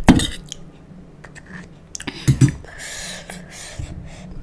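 Close-miked handling of panipuri and utensils: a spoon clicking and scraping in a bowl of potato filling as a puri shell is stuffed, two sharp knocks about halfway through, then a short wet swish as the puri is dipped into the spiced water.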